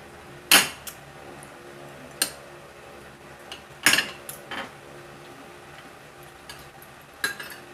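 Fork and spoon clinking and scraping against a plate while eating, in scattered sharp clinks, the loudest about half a second in and about four seconds in.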